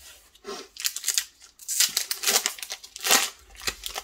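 Plastic wrapper of an Upper Deck hockey card pack being torn open and crinkled, in several quick crackling bursts.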